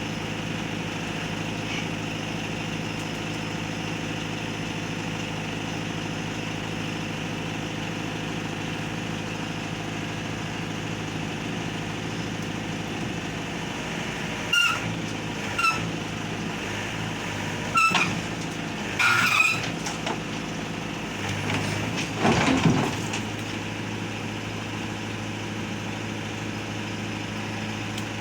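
Diesel engine of heavy equipment idling steadily, with a handful of short, sharp knocks a little past the middle and a brief louder surge of the engine a few seconds later.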